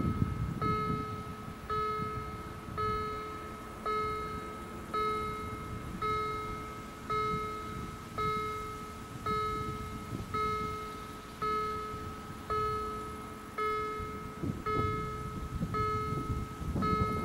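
Railway level crossing warning bell ringing steadily, about one strike a second, each strike ringing out and fading before the next. It warns that a train is approaching the lowered barriers.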